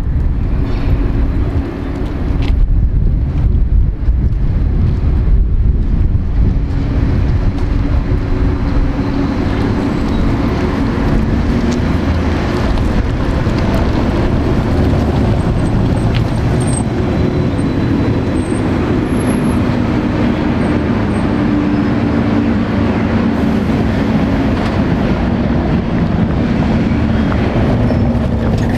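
City buses on a street: a steady rumble of road traffic with the hum of a trolleybus going by. Near the end, an Iveco city bus draws up close with its engine running.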